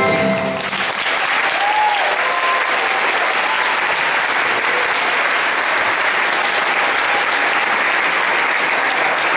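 Audience applauding steadily as the song's last music notes end, about half a second in.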